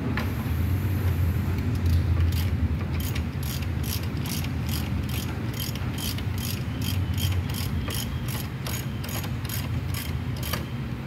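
Socket ratchet clicking steadily as it is swung back and forth on a bolt in a car's engine bay, about three clicks a second, starting about two seconds in and stopping near the end. A steady low hum lies underneath.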